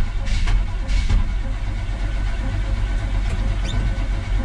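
Starter cranking a 1977 Chevrolet C10's small-block V8, turning it over steadily without it catching; the crew suspects the engine is a little flooded.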